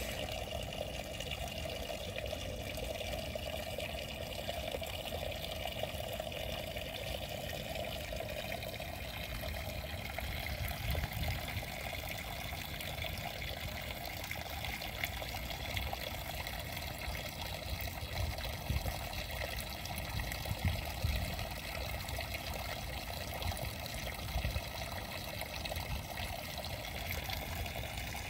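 Water trickling steadily in a shallow muddy ditch.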